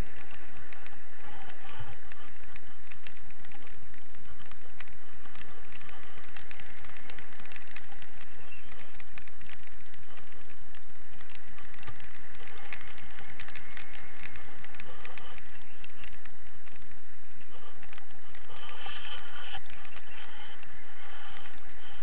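Wind rushing over the camera's microphone in flight on a tandem paraglider: a steady, constant noise with dense crackling and buffeting throughout.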